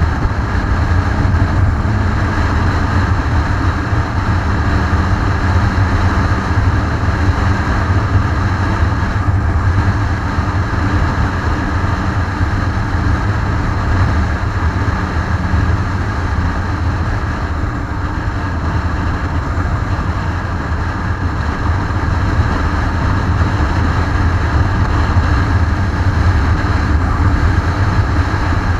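Motorcycle riding at highway speed: a steady rush of wind buffeting the camera microphone, with the engine and tyre noise running underneath.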